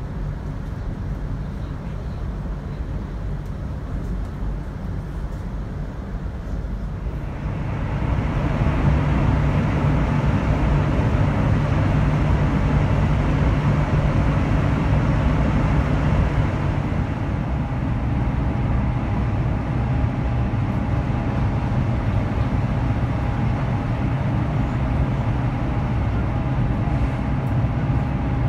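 High-speed train running at speed, heard from inside the passenger cabin as a steady rumble with rushing noise. About seven seconds in it grows louder and hissier, easing again after about sixteen seconds, when a faint steady whine comes in.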